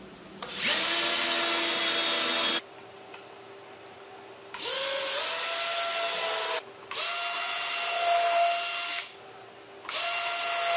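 Cordless drill run into a wooden 2x4 frame in four bursts of one to two seconds, each spinning up quickly and then holding a steady high whine, with short pauses between.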